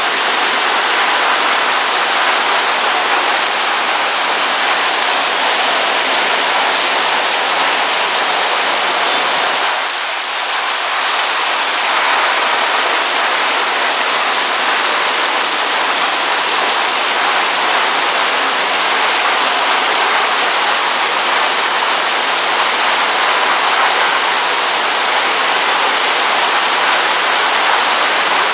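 Heavy rain pouring down in a steady, dense hiss, falling on the street, roofs and balcony, briefly a little softer about ten seconds in.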